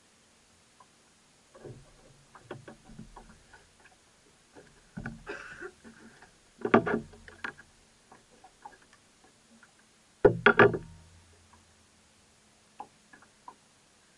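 Irregular light clicks and knocks aboard a small fishing boat, with two sharper thumps about seven and ten seconds in.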